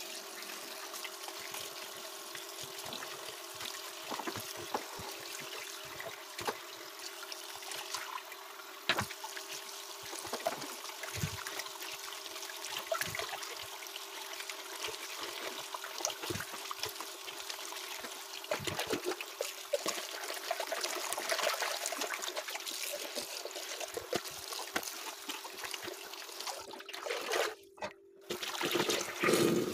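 Water trickling and dripping steadily, with scattered drip clicks over a low steady hum. It cuts out briefly near the end.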